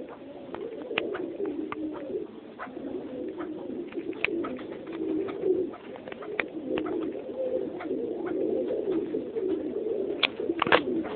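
Captive birds in a coop giving a steady, low, wavering cooing murmur. Scattered short sharp sounds run over it, with a burst of louder ones near the end.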